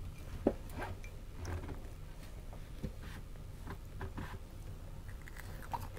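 A few faint, scattered clicks and taps of a bamboo skewer against a ceramic bowl as food is picked from it, over a low steady room hum.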